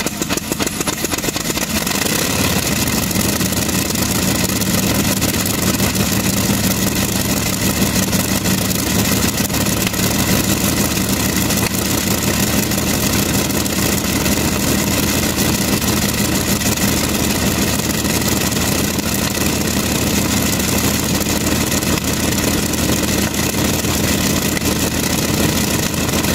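Shvetsov ASh-62 nine-cylinder radial aircraft engine running just after a cold start, settling into a steady idle about two seconds in.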